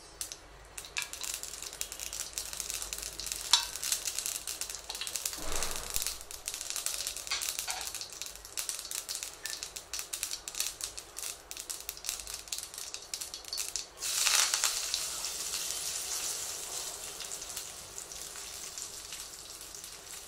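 Mustard seeds popping and crackling in hot oil in a small steel pan, the tempering for curd rice. About fourteen seconds in a louder rush of sizzling sets in as curry leaves hit the oil, then slowly dies down.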